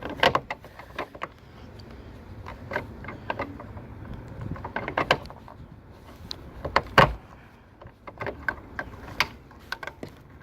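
Irregular clicks, taps and rattles of hard plastic parts being handled while a turn signal bulb socket is worked into a car's tail light housing, with one louder knock about seven seconds in.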